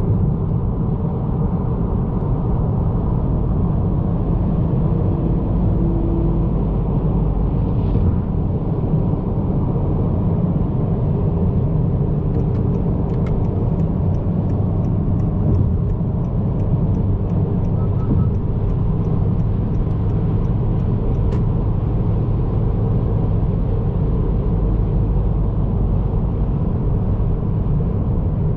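Steady in-cabin road and engine noise of a 2022 Honda Accord Sport 1.5T cruising at highway speed, mostly a low rumble. About twelve seconds in, faint regular ticking starts, about two ticks a second, and stops some nine seconds later.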